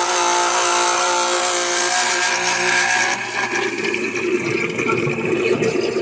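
Electric oil exchange pump running, pumping engine oil through its hose with a steady whine; about halfway through the whine gives way to a rougher, noisier sound.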